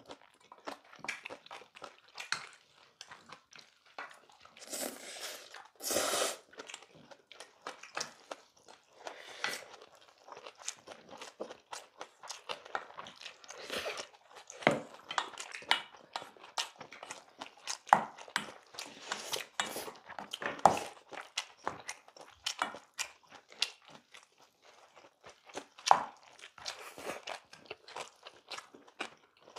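Close-miked eating: people chewing and crunching mouthfuls of brown-rice bibimbap, with many short clicks and scrapes of spoons and chopsticks in stainless steel bowls. A louder, longer noisy burst comes about six seconds in.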